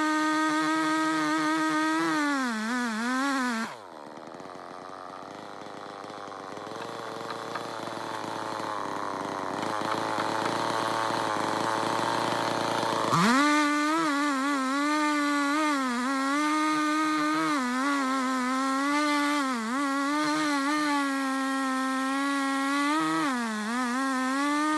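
Holzfforma G660 two-stroke chainsaw running at full throttle as it rips lengthwise through red oak in a chainsaw mill, its pitch dipping and recovering under the load. About four seconds in the throttle is let off and the engine drops to a low idle; roughly nine seconds later it revs sharply back up to full speed and carries on cutting.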